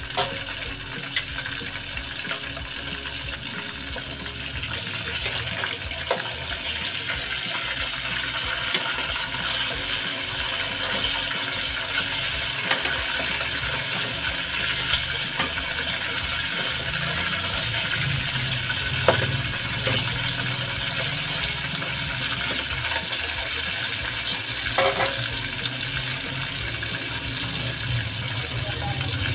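Chicken wings deep-frying in hot oil in a pot, a steady sizzle and bubbling, with a few sharp clicks scattered through it.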